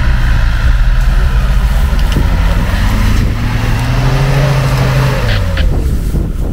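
Off-road SUV engine pulling through a muddy puddle, with churning tyre and mud noise. The engine revs up about halfway through and eases off a little after five seconds; the crossing goes easily, on rear-wheel drive alone.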